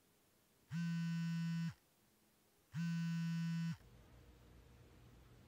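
A phone buzzing with an incoming call in pulses about a second long with a second's gap between them. Two buzzes sound, and the ringing stops about four seconds in, leaving faint room tone.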